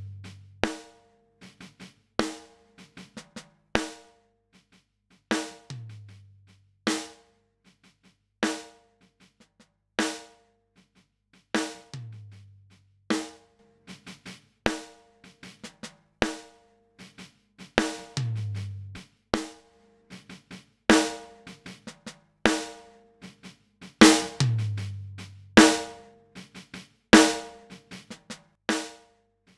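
Drum loop of kick, snare and hi-hat with a low bass note every few seconds, running through a Great River PWM-501 compressor as its controls are turned. The hits come about every 0.8 s and get noticeably louder and harder about three-quarters of the way through.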